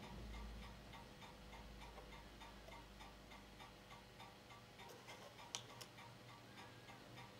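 Faint, even ticking about four times a second over a low hum from an Ania 5 filmstrip projector. About five and a half seconds in, two sharper clicks as the filmstrip is wound on to the next frame.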